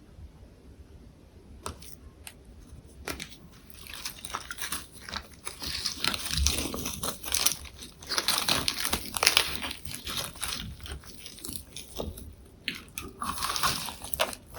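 A person chewing a lettuce and perilla-leaf wrap with tofu, close to the microphone, making crisp crunching and wet mouth sounds. It starts quietly with a few clicks, and the crunching becomes dense and steady about four seconds in.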